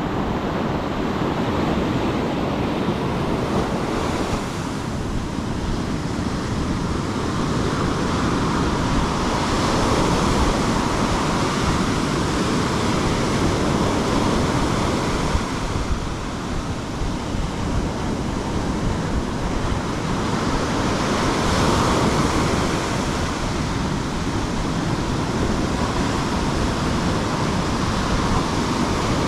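Sea waves washing steadily, with wind noise on the microphone, swelling and easing every few seconds.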